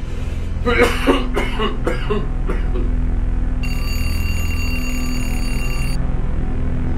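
Experimental soundtrack: a steady low drone with a run of short, voice-like sounds in the first couple of seconds, then a steady high electronic ringing tone for about two seconds that cuts off abruptly.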